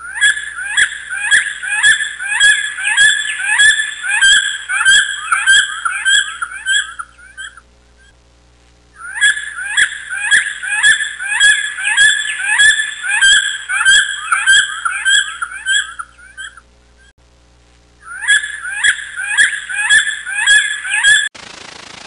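A bird calling in long series of rapid, sharp, repeated notes, about two a second, in three bouts of several seconds each with short pauses between.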